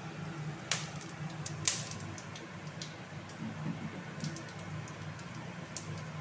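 Cumin seeds and whole spices crackling in hot oil in a steel kadai: irregular sharp pops, two louder ones within the first two seconds, over a low steady hum.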